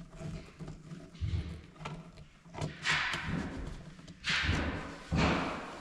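Knocks and clicks of hand work with a screwdriver at a light switch, with three longer scraping rasps in the second half.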